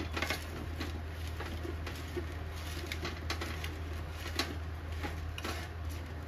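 Hands tossing salted cut brinjal pieces on a plate: soft, irregular clicks and rustles of the pieces knocking against each other and the plate, over a steady low hum.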